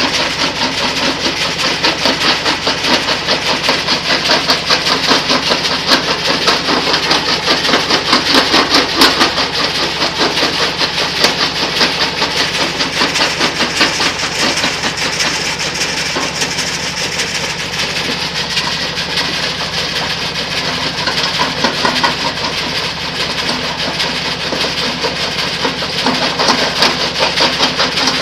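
Stone crusher running with its screen, a steady machine drone under a dense, continuous rattle of crushed stone clattering over the mesh and down the metal chutes.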